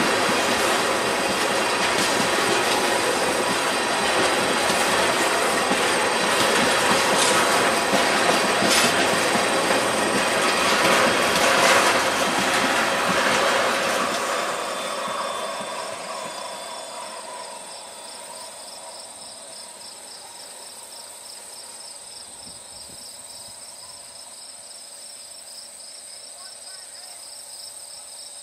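Freight train of tank cars rolling past, wheels clicking and rumbling on the rails. About halfway through, the end of the train goes by and the rumble fades away, leaving crickets chirping in a steady, rapid pulsing rhythm.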